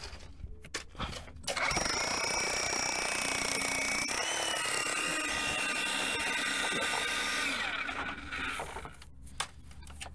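Power drill running for about six seconds, with a steady motor whine that steps up slightly in pitch partway through and winds down near the end. It is preceded by a few light knocks.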